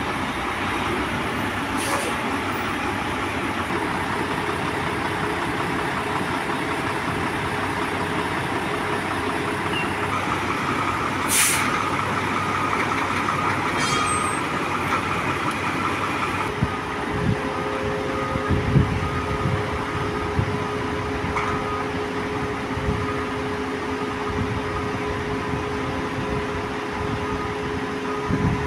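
Heavy semi-truck's diesel engine running steadily as the tractor-trailer creeps onto a truck weighbridge, with a short hiss of air brakes about eleven seconds in. After about sixteen seconds the sound settles into a steadier hum with a few light knocks.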